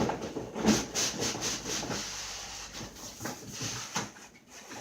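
Cardboard box and packaging scraping and rubbing as the box is worked open and the contents are pulled out, with a few sharp knocks, the loudest just under a second in.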